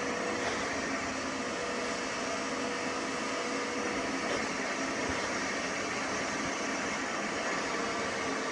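Vacuum running steadily, sucking air through the VaporChief steam/vacuum hose's extractor nozzle as it is drawn across a wet carpet floor mat: vacuum only, with no steam or water injection.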